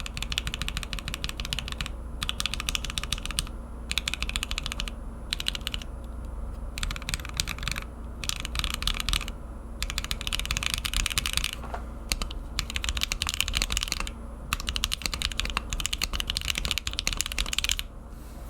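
TKC Portico mechanical keyboard with Hippo linear switches and IFK BoW keycaps being typed on: rapid keystrokes in about ten bursts of a second or two, with short pauses between them. The typing stops just before the end.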